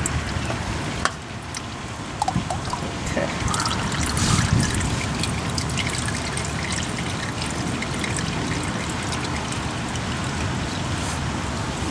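Engine oil trickling and dribbling from a just-removed spin-on oil filter and its mount on the engine, with a few light clicks and a louder spell about four seconds in.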